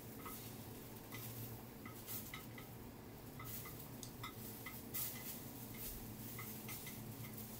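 Battered oyster pancakes frying in an oiled pan: a faint sizzle with many small, scattered ticks, and wooden chopsticks clicking against the pan as the pancakes are lifted and turned.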